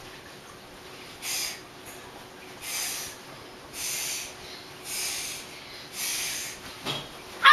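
A young girl's sharp, hissing exhalations, one with each Choi Kwang Do technique in her pattern, about one a second, five in all. A louder cry begins right at the end.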